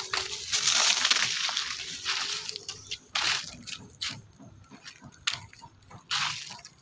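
Dry fallen leaves crunching and rustling under footsteps through leaf litter: a dense run of crunching, then a few separate crunches in the second half.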